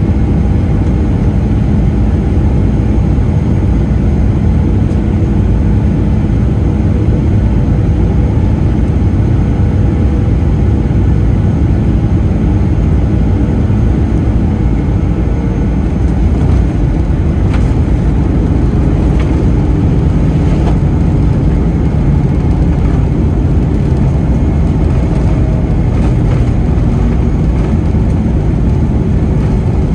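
Cabin noise beside the wing of a Boeing 737-400 landing: the steady rush of its CFM56 engines and airflow on final approach, then touchdown and the rumble of the runway rollout, with the thrust reversers deployed near the end.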